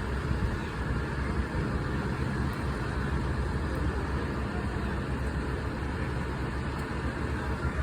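Steady low rumble of idling vehicle engines, with no distinct events.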